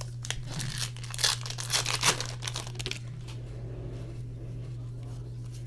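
Crinkling and tearing of a trading-card pack's foil wrapper being ripped open, densest in the first three seconds and then dying down to lighter handling, over a steady low electrical hum.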